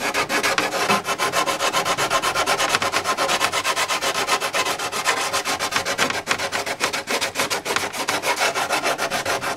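Sandpaper wrapped around a small round container, rubbed in quick back-and-forth strokes, several a second, along the edge of a motorcycle seat cowl. The edge is being rounded over and the hardened carbon-fibre hairs sanded off.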